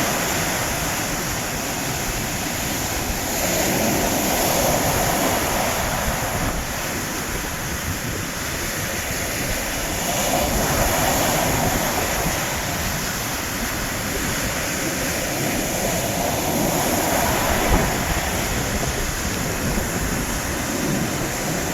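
Sea waves breaking on a shore: a continuous rushing surf that swells and eases about every six to seven seconds.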